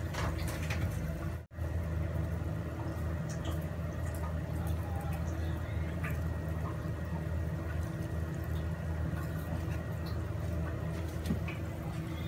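Pan of crabs heating on a gas stove: a steady low hum with a faint watery hiss, cutting out briefly about one and a half seconds in.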